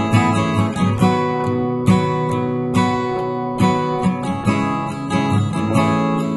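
Background music: strummed acoustic guitar playing chords at a steady level.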